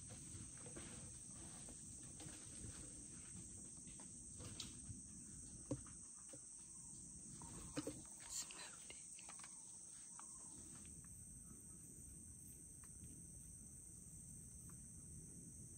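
Crickets chirring steadily at a high pitch, faint, with a few soft clicks and knocks about five to nine seconds in.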